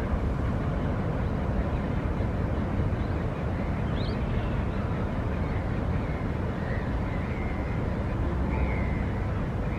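Harbour ambience: a steady low rumble with faint, short bird calls now and then, more of them in the second half, and a brief rising chirp about four seconds in.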